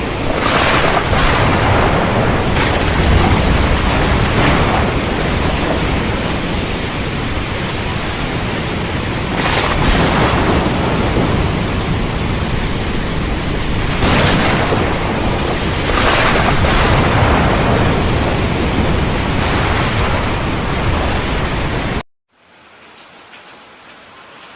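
Heavy rain with rolling thunder, the rumble swelling several times. About 22 seconds in it cuts off abruptly to a much quieter rain recording.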